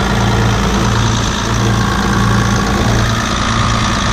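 John Deere 7720 combine's six-cylinder diesel engine idling steadily, with a regular slow throb in its low note. The engine has a lot of blow-by, with its crankcase vent blowing oil out.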